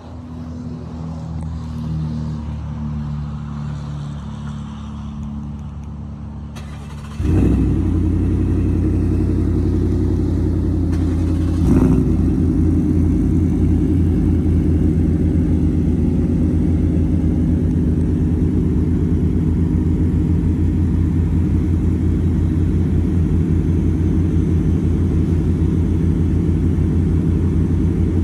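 Shelby Super Snake F-150's supercharged V8 starting up about seven seconds in and settling into a loud, steady idle through its exhaust, with a brief blip a few seconds later. Before the start, a quieter engine is already idling.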